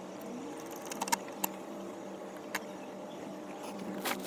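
Steady low background hum with a few light clicks, more of them near the end, as screws and bracket hardware are handled and tightened.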